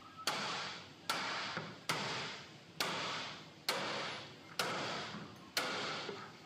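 Seven sharp taps about a second apart, each trailed by a brief fading hiss: hammer blows forcing a tight-fitting part into a 3D-printed go-kart rear wheel assembly.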